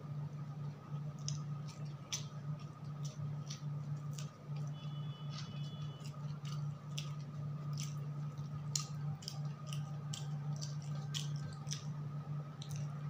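Close-up eating sounds: wet chewing and lip smacks, with fingers mixing rice by hand, as many short scattered clicks. Under them runs a steady low hum.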